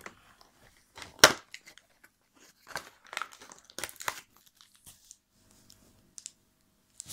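Cardboard advent-calendar door being pried open and a Kinder chocolate's plastic wrapper crinkling in the hands, in short irregular rustles, the sharpest about a second in.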